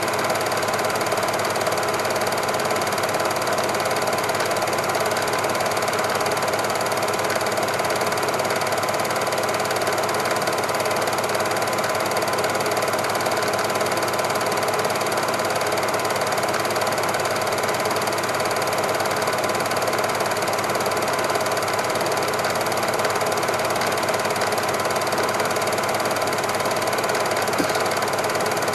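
Super 8 cine projector running steadily, its mechanism giving an even mechanical whirr with a faint constant hum, unchanged throughout.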